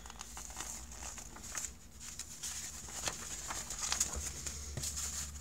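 Pages of a paper instruction manual being handled and turned: light rustling with scattered small crackles and ticks.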